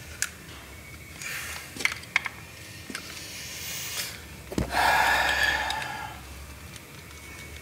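Plastic window-switch housing clicking and creaking as it is forced out of its door bezel against double-sided tape. A longer scraping rush about halfway through is the loudest sound.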